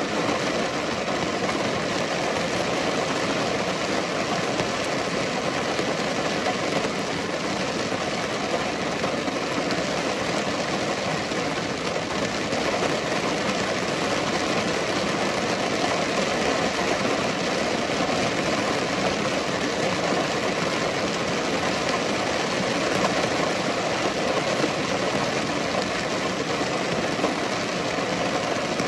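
Steady rainfall: an even, dense hiss of falling drops that holds the same strength throughout.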